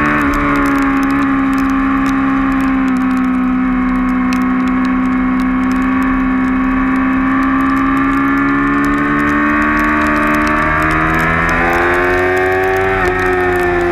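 2008 Yamaha R6's inline-four engine running at high revs under racing load, its pitch held nearly steady through a long leaned-over corner, then climbing as the throttle opens onto the straight, with a brief dip near the end.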